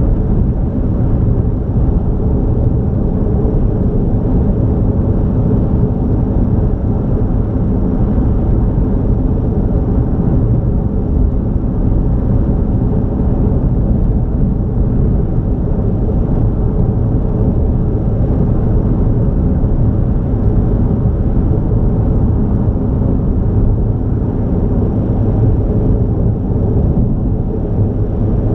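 Car driving steadily at highway speed: a continuous low rumble of road, tyre and engine noise.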